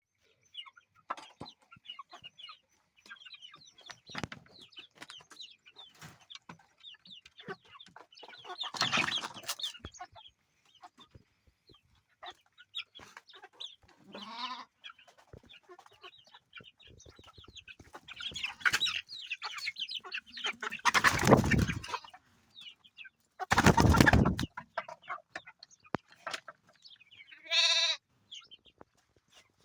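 Chicks cheeping almost constantly, with chickens clucking. Several loud, short noisy bursts break in, and a single short, louder bird call comes near the end.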